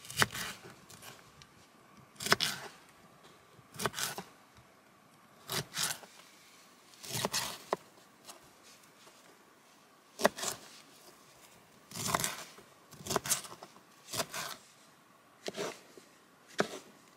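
A small kitchen knife cutting through cauliflower and then broccoli florets onto a plastic chopping board. About a dozen short, crisp cuts come at irregular intervals of a second or two.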